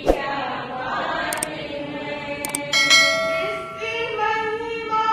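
Woman's voice singing a Jain devotional bhajan. About three seconds in, a bright ringing tone starts suddenly and fades over about a second.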